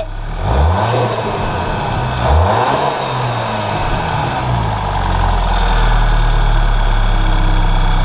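Volkswagen GTI's 2.0-litre turbocharged four-cylinder engine revved briefly twice, then idling steadily. It runs without an exhaust leak now that the failed aftermarket downpipe gasket has been replaced with a factory one.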